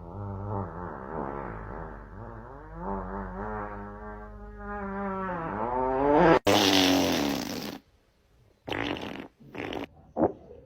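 A long, drawn-out fart noise whose pitch wavers up and down for about six seconds, played as a prank. It is cut off by a sudden hiss lasting about a second and a half, and a few short noisy bursts follow near the end.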